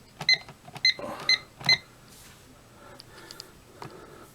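Fire alarm control panel keypad beeping as buttons are pressed to enter programming mode: four short, high beeps in the first two seconds, then a few faint clicks.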